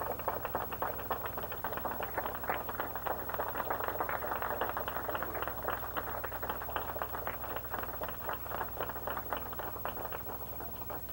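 Audience applauding: many hands clapping densely, thinning out and stopping near the end.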